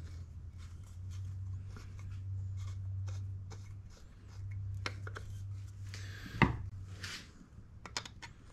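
Hands fitting a metal rifle buttplate against a wooden gun stock and setting a screwdriver to its screw: scattered light clicks, taps and rubbing, with one sharper knock about six and a half seconds in. A steady low hum runs underneath and stops near the end.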